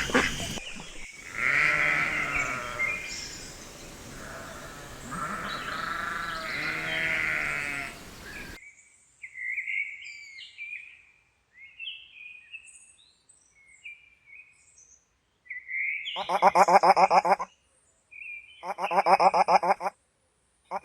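Bleating farm animals for about eight seconds, then an abrupt cut to a few short high chirps. Near the end come two loud, quavering animal calls about two seconds apart.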